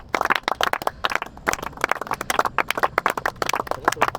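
A small group of people clapping their hands, many quick irregular claps overlapping.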